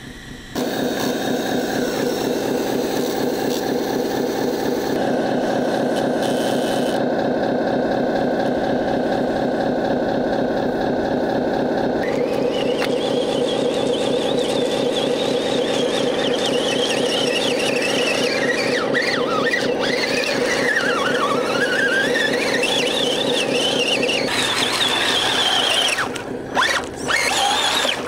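Small electric motors and gearing of radio-controlled trucks whining steadily at high pitch, as the RC tow truck's winch and the trucks' drive motors work a truck out of the mud. About midway a second, higher whine joins, rising and falling in pitch. Near the end the whine breaks off briefly a few times.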